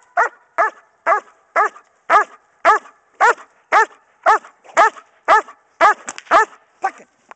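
German shepherd barking steadily, about two barks a second, as the guarding bark of a Schutzhund bark-and-hold: she barks at the helper and his bite sleeve to hold him without biting. The barks stop near the end.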